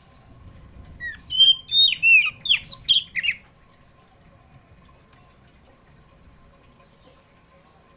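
Oriental magpie-robin of the black 'kacer poci' type singing a short burst of loud, rapid whistled notes, many sweeping downward, for about two seconds starting a second in. One faint note follows near the end.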